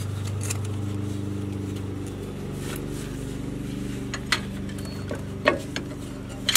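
A few sharp metallic knocks and clinks from a slide hammer with a CV-axle adapter, worked against a front CV axle that is rusted fast in its bearing bracket. They fall over a steady low hum.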